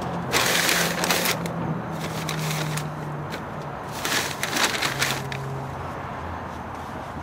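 Heavy automotive carpet rustling and scraping as gloved hands smooth it down and lift and fold its edge, in two bursts, about half a second in and again around four seconds in. A faint low hum runs underneath.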